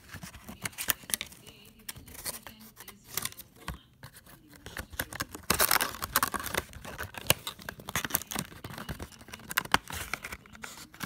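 Clear plastic blister packaging crackling and clicking as it is handled, while a fidget spinner is pressed back into its plastic tray. A denser stretch of crinkling comes about five to seven seconds in.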